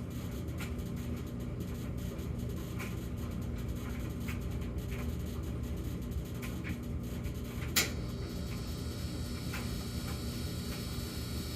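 Samsung gas dryer running with a steady low drone and faint ticks. About eight seconds in there is a sharp click, and a steady high-pitched hum sets in: the start of the intermittent high humming that the owner is trying to diagnose, which recurs in a fixed cycle.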